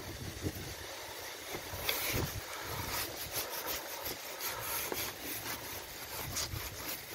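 A hoe stirring and scraping through a wet mud slurry of soil, compost and water in a planting hole, with irregular scrapes that come more often from about two seconds in. Wind rumbles on the microphone underneath.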